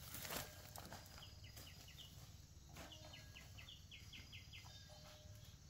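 Faint bird calls in the undergrowth: two runs of short, falling chirps a few a second, the second run longer, with a brief rustle near the start.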